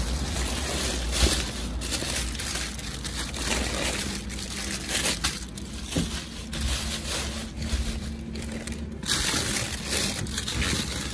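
Plastic bin bags and food packaging rustling and crinkling as gloved hands rummage through discarded groceries in a dumpster, with irregular soft knocks of items being shifted.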